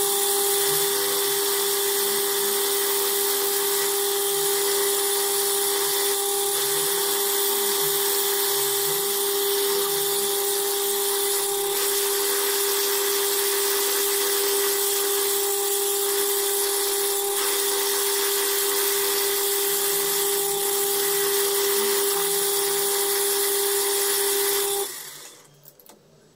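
Metal lathe running and cutting an Ergal aluminium bar: a loud, steady whine with the hiss of the tool peeling off aluminium chips. It stops suddenly near the end.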